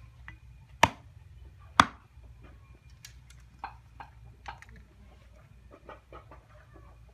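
Machete chopping down onto a wooden block: two sharp, loud chops about a second apart near the start, then several lighter knocks and taps.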